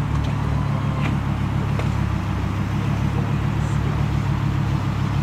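Off-road competition buggy's engine running steadily at low revs, an even low hum with no revving.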